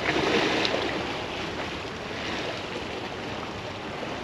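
Tidal water washing and lapping at the edge of a very high tide, with wind on the microphone; the wash swells louder in the first second, then settles.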